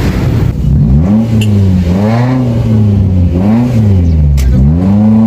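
Maruti Suzuki Zen with an aftermarket exhaust and muffler, revving up and dropping back about four times in a row, with a single sharp click about four seconds in.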